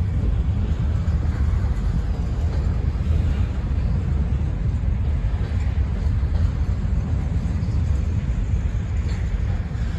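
Covered hopper cars of a freight grain train rolling past, a steady low rumble.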